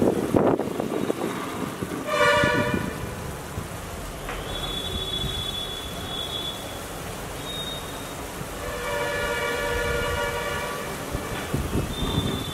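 Onion-tomato masala sizzling in a kadai as spice powder is spooned in. A horn-like chord of several tones sounds twice over it, briefly about two seconds in and for about two and a half seconds from eight and a half seconds in.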